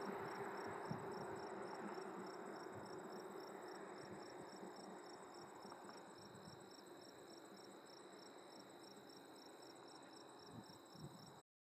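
Field insects chirping in a fast, steady pulse over the fading engine and tyre noise of a 1988 Toyota SR5 4x4 pickup driving away. The sound cuts off abruptly near the end.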